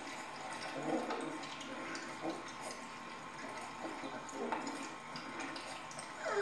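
A litter of puppies eating wet food from a shared dish: continuous wet lapping, slurping and chewing made of many small irregular smacks.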